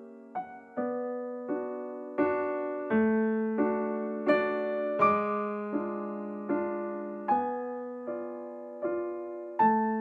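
Slow, gentle piano music: single notes and chords struck at an even pace, about one every three-quarters of a second, each fading before the next.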